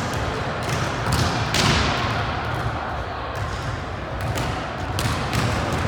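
Volleyball being struck and bouncing on a gym floor: a scattering of sharp thuds, the loudest about a second and a half in, over a steady background of crowd noise.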